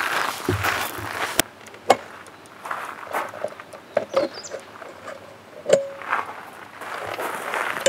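Footsteps crunching on gravel for the first second or so, followed by scattered sharp clicks, knocks and a couple of brief squeaks from gear being handled while a roof-top tent is packed away.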